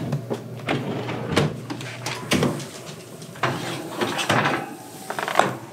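Kitchen drawer pulled open for an oven mitt, then the oven door opened and a metal baking sheet drawn out along the oven rack: a string of separate knocks, clacks and scrapes.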